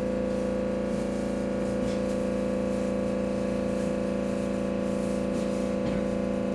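Steady hum of several even tones inside a stopped JR E127 series train car, its onboard equipment running. The E353 series train passes just outside the closed window, heard only as a few faint clicks.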